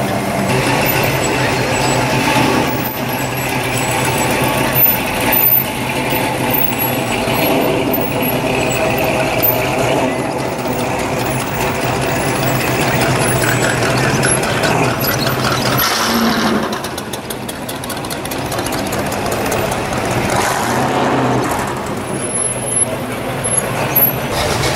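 Classic cars and hot rods, including a lifted pickup, rolling past one after another at walking pace, their engines running at low idle with a steady low rumble.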